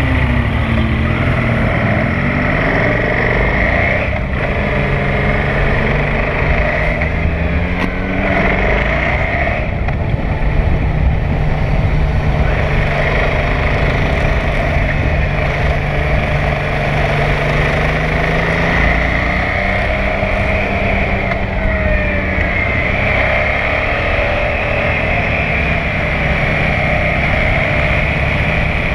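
KTM 990 SMR supermoto's V-twin engine heard from on board at track speed, revs rising and falling through corners and gear changes, with brief breaks at the shifts.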